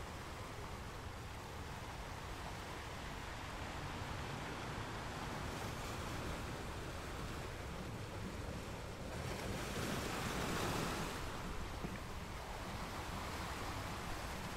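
Ocean surf: a steady rush of waves that swells louder about two-thirds of the way through, then eases back.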